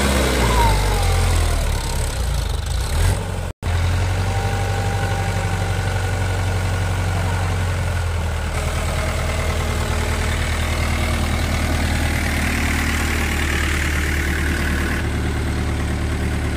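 Mahindra Yuvo 475 DI tractor's diesel engine running steadily at low revs, a little uneven in the first few seconds, with an instant's cut-out about three and a half seconds in.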